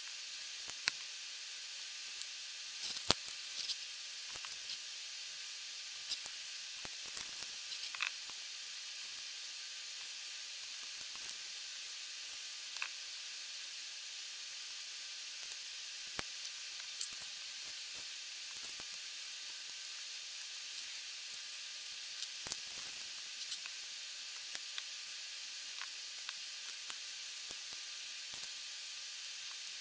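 Steady hiss of recording noise with scattered small clicks and taps, thickest in the first third and again about two-thirds through, as plastic LEGO pieces are handled, set down on a table and pressed together.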